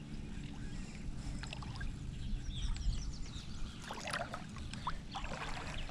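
Shallow water sloshing and rippling around a wading angler's legs, with a steady low rumble of wind and a few small splashes near the end.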